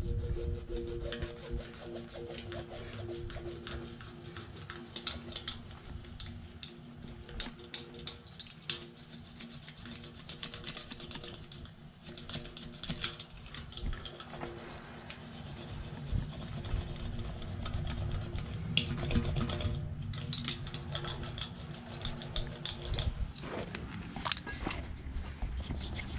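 A tire patch stitcher's serrated wheel is rolled back and forth over a patch inside a truck tire, pressing it into the rubber cement. It makes a scratchy rubbing sound with many small clicks.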